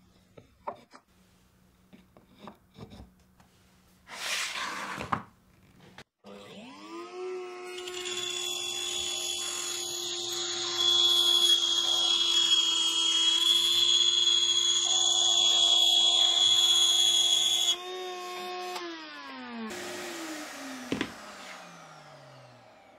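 Table-mounted wood router switched on, its whine rising as the motor winds up to a steady high speed. For about seven seconds in the middle it cuts a slot in a plywood board fed along the fence, adding a loud high hiss of bit on wood. It is then switched off and the whine falls as the motor spins down. Before start-up there are a few light knocks and a short scrape of wood on the table.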